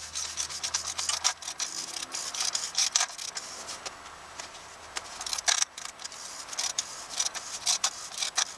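Socket ratchet clicking in several quick runs as it is swung back and forth, tightening the plastic oil filter housing cap on top of a 6.4 Powerstroke diesel engine down to snug.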